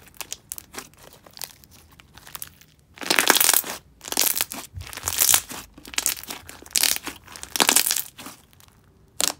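Thick glossy semi-floam slime packed with beads and foam chunks, worked by hand: light clicks and pops at first, then from about three seconds in a series of louder crackling, crunching bursts as the slime is pressed and squeezed.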